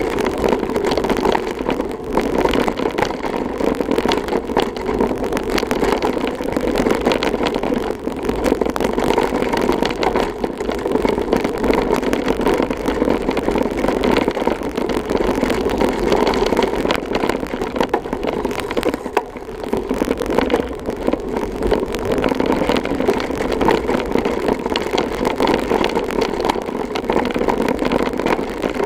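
Mountain bike ridden along a dirt and gravel trail, heard through a handlebar-mounted camera: a steady rumble of the tyres on the ground with constant small rattles and knocks of the bike and mount over bumps.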